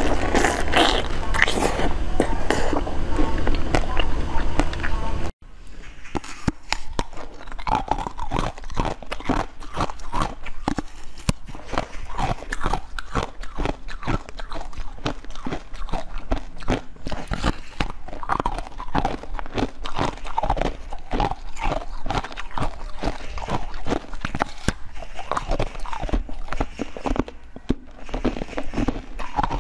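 Close-up eating sounds: biting and chewing, which change suddenly and get quieter about five seconds in. First comes chewing of a soft green dessert ball coated in almond flakes. After that come many short, sharp bites and chewing of a sugar-coated blue jelly candy shaped like a keyboard.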